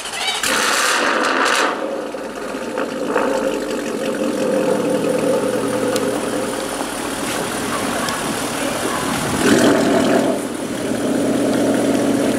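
Jaguar F-Type R's supercharged V8 with a decatted Capristo exhaust starting up: a loud flare about half a second in, then a steady idle. About nine and a half seconds in there is a short rev, then it idles again.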